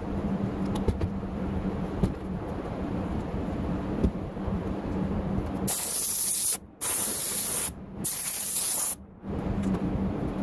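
Compressed-air spray gun spraying upholstery spray glue onto a seat cushion's foam in three hissing blasts of about a second each, starting a little over halfway through. A steady low hum runs under it before the spraying starts.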